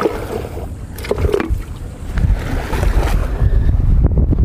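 Wind buffeting the microphone outdoors, a low rumble that grows louder about two seconds in, with a few short knocks.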